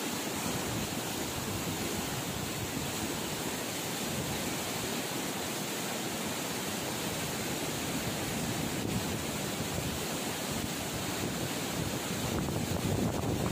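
Floodwater rushing through a dam's open spillway gates and churning below, a steady rush of water that swells slightly near the end.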